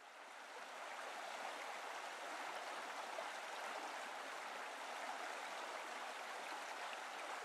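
A mountain river rushing steadily over rocks, fading in over about the first second.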